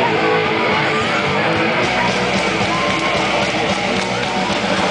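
Live punk rock song starting: an electric guitar plays the intro, and the full band with bass and drums comes in about two seconds in.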